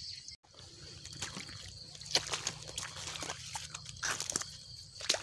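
Shallow water sloshing and splashing, with scattered sharp clicks.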